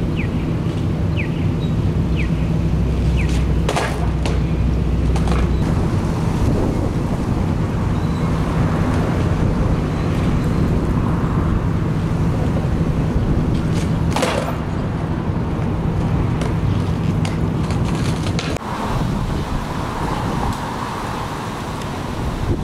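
Street ambience with a steady low engine hum from a vehicle idling nearby, and sharp skateboard clacks against a concrete ledge, once about three and a half seconds in and again about fourteen seconds in. The hum stops near the end, leaving traffic and wind noise.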